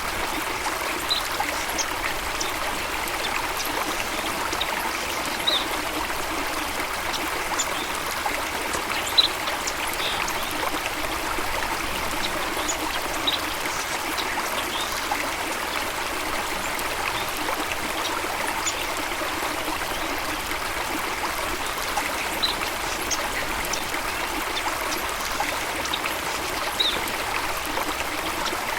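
Running water, a stream trickling and babbling steadily, with scattered short high chirps from birds every second or two.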